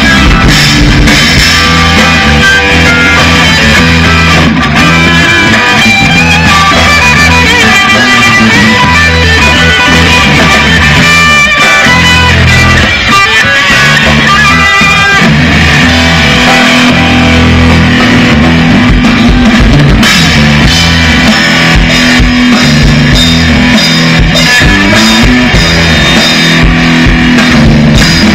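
Live rock band playing loud through a stage PA: electric guitars over a drum kit, continuous with no pause.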